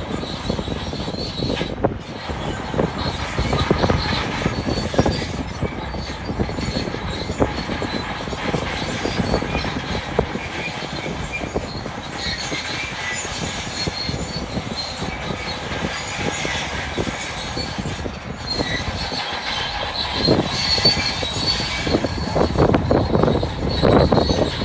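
Bulldozer running and moving on its steel tracks, the engine giving a steady noise under a high squeal and clatter from the track links and rollers.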